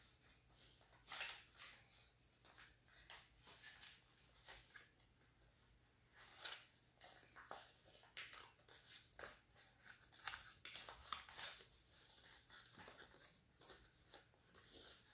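Origami paper crinkling and rustling as a sheet is folded and creased by hand: faint, irregular crackles with a few louder ones.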